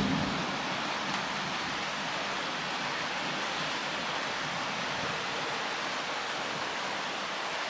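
Steady hiss of a heavy summer downpour during a thunderstorm, with the last of a thunder rumble dying away at the start.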